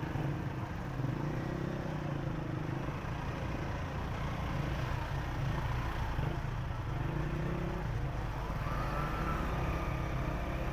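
Congested city road traffic heard from a slow-moving motorcycle: the bike's small engine and the surrounding cars, motorcycles and a truck running steadily at crawling speed.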